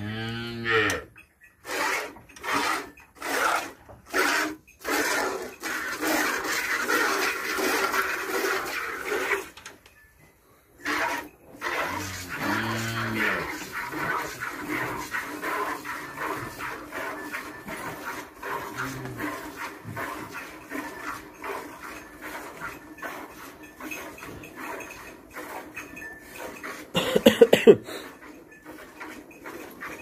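Milk squirting into a steel bucket as a cow is milked by hand, at first in separate strokes about two a second, then as a denser steady hiss. Cattle low twice: a short low moo about twelve seconds in and a louder call near the end.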